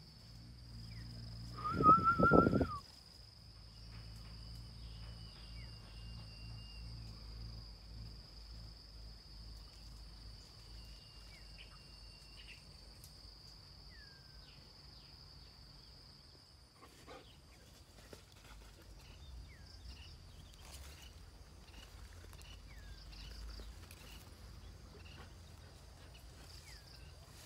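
Steady high insect drone with scattered short bird chirps. About two seconds in comes a loud, high-pitched cry that lasts about a second.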